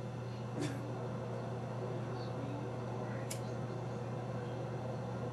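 Steady low hum with an even hiss, broken by two brief clicks, one about half a second in and one a little past three seconds.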